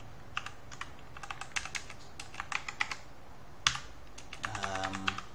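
Computer keyboard typing: irregular key clicks, with one louder keystroke about three and a half seconds in.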